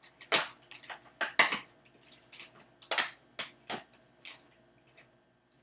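Plastic kit bag of electronic parts crinkling and rustling as it is handled and opened, in irregular sharp bursts that stop about five seconds in.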